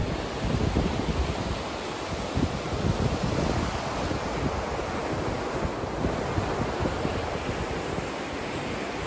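Surf from a rough sea washing onto a sandy beach, a steady rush of noise, with wind buffeting the microphone in low gusts.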